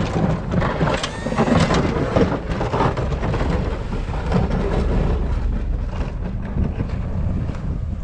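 Ford F-250 pickup running as its Fisher plow blade pushes and scrapes through deep snow: a steady low engine rumble under rough crunching and scraping of snow against the steel blade, heaviest in the first few seconds.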